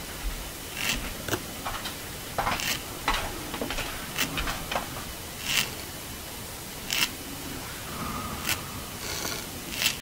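Yellow garden slugs (Limax flavus) rasping at an old pasta packet with their radulas as they feed. The sound is a string of short, irregular scraping crunches, over a dozen, against a steady hiss.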